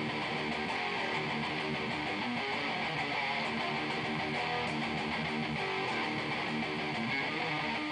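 High-gain distorted electric guitar riffing, played through a Bugera 6260 valve amp head into a 2x12 speaker cabinet. The sound is dense and even in level, picked up by an old camera's microphone.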